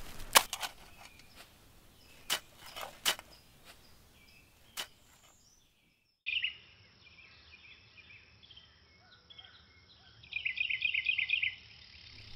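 A few sharp knocks in the first half, then a moment of silence. After it, outdoor ambience with birds chirping, and a quick run of repeated chirps near the end.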